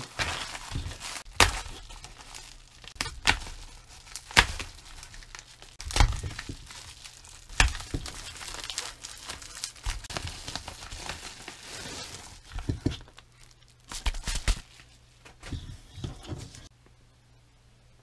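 Bubble-padded plastic mailer being torn open and crinkled by hand, with a run of sharp crackles and knocks; it goes quiet near the end.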